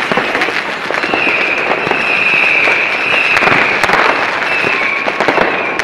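New Year's fireworks and firecrackers going off in a dense, continuous crackle of pops and bangs. A high whistle slides slightly down in pitch over the crackle several times.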